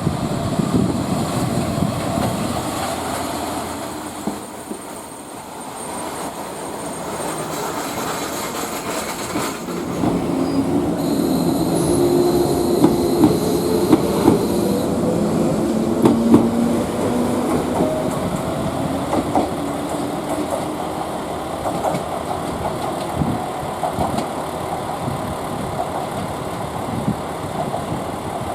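Train running through the station: wheels clacking over rail joints, with some wheel squeal and a wavering pitched sound that gets louder about ten seconds in.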